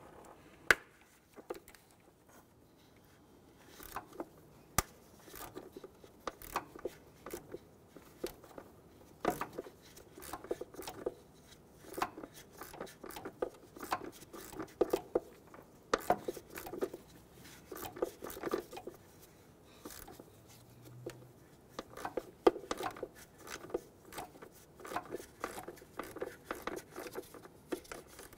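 Hand tools and metal engine parts clicking, clinking and knocking under a car's hood, in irregular clusters with short pauses, as parts around the upper cam gear cover are worked on by hand.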